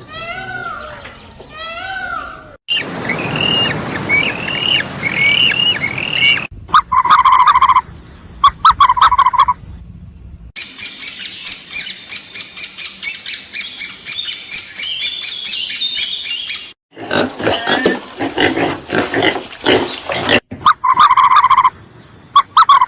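A run of different animal calls cut one after another: arched honking calls at the start, then stretches of rapid high chirping and other calls, each clip ending abruptly.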